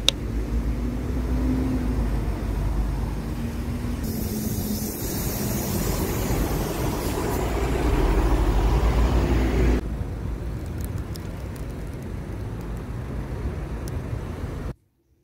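City bus engine and road traffic close by: a loud, steady rumble with traffic noise, loudest about eight seconds in as the bus stands at the kerb, dropping off suddenly near ten seconds.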